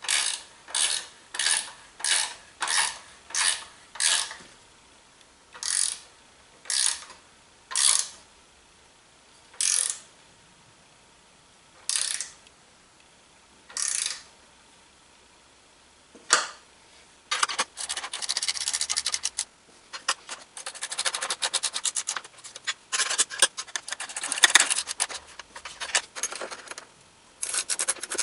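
Socket ratchet wrench clicking as nuts are tightened on bolts. The ratchet back-strokes come as short, regular bursts of clicks that space out over the first half. From about two-thirds of the way in, the clicking turns rapid and nearly continuous.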